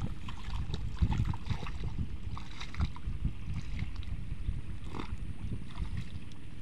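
Single-cylinder diesel engine of a two-wheel hand tractor running, bogged down in deep mud, with water and mud sloshing around the cage wheels.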